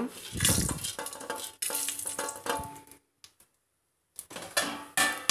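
A steel plate scrapes and clatters against the rim of a pressure cooker as whole spices are tipped into hot oil, and the spices sizzle as they temper. There is a short gap, then more clatter and sizzling near the end.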